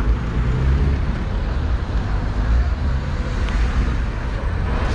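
Busy street ambience: a steady rumble of road traffic and vehicle engines.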